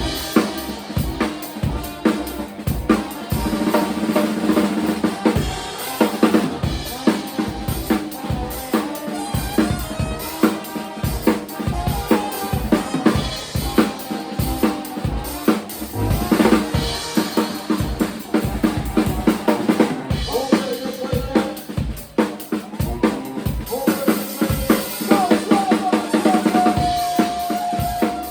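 Music with a steady drum-kit beat, kick and snare hits, and a melody on top that ends on a held note.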